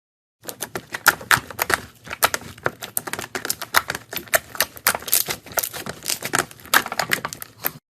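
Slime being squeezed and worked by hand, giving a dense, irregular run of sharp clicking and popping sounds that starts about half a second in and stops abruptly just before the end.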